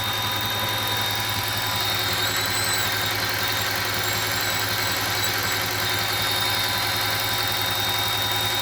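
2008 Audi S8 5.2-litre FSI V10 idling steadily with a constant high-pitched whistle over the engine note: an air leak past a faulty throttle body gasket.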